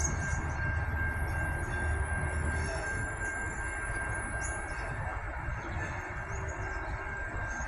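Adelaide Metro 4000 class electric multiple unit running slowly into a station platform. A steady high whine sits over a low rumble that eases about three seconds in, with faint thin high squeals in the first half.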